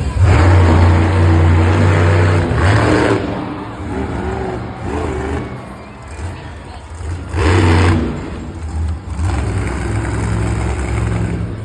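Monster truck engine revving hard and easing off, with loud surges in the first few seconds and again about eight seconds in.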